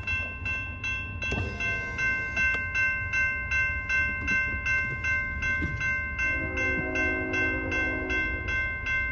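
Grade-crossing warning bell ringing with rapid, repeated electronic dings. From about six seconds in, the lead locomotive's Nathan K5HL five-chime horn sounds one long chord for about two seconds, blowing for the crossing.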